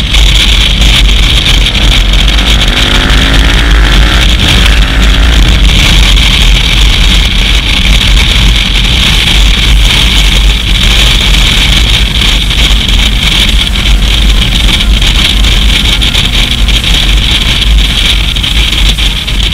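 KTM 990 Adventure's V-twin engine heard on a bike-mounted action camera, nearly buried under loud, distorted wind buffeting on the microphone. The engine rises in pitch as the bike accelerates in the first few seconds, then the roar holds steady.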